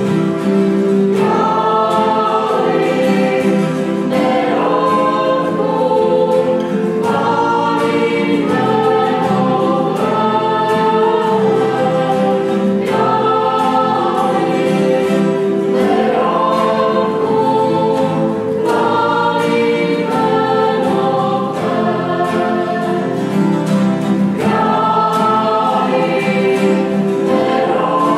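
A small church choir of men's and women's voices singing a worship song together, accompanied by acoustic guitar and keyboard.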